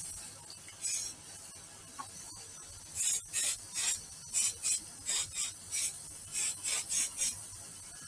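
Aerosol spray can hissing in short spurts onto the rim of a bowl spinning on a wood lathe: one spurt about a second in, then about a dozen quick spurts in a row from about three seconds in.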